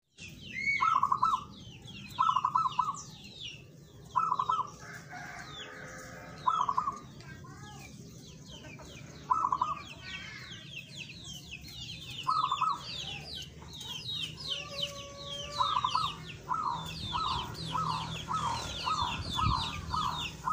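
Zebra dove (perkutut) cooing in short rolling phrases that repeat every two to three seconds, then come faster, about twice a second, near the end. Higher, thinner bird chirping goes on continually behind it.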